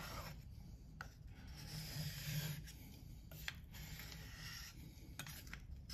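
Opinel knife blade rubbed back and forth flat on a wet AliExpress 3000-grit diamond-ceramic sharpening stone: a soft gritty scraping in uneven strokes of about a second, with a few light clicks.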